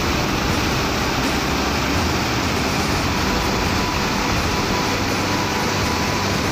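Swollen floodwater pouring over a concrete weir, a loud, steady rush of churning white water.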